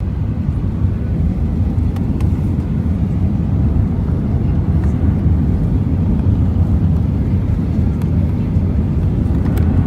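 Steady low cabin rumble of an Airbus A319 in flight: engine and airflow noise heard from inside the passenger cabin, with a few faint clicks.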